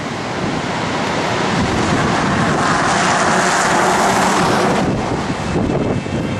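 Strong wind rushing over the microphone, a loud, even roar that swells in the middle and eases about five seconds in.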